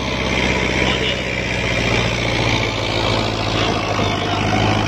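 New Holland Dabang 85 tractor's diesel engine running steadily under load as it pulls a laser land-leveller blade through sandy soil.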